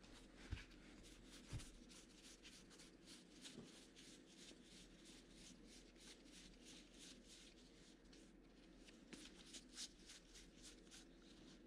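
Faint, soft flicking and rustling of baseball trading cards being sorted through by hand, a quick run of small clicks several times a second. There are two light thumps near the start.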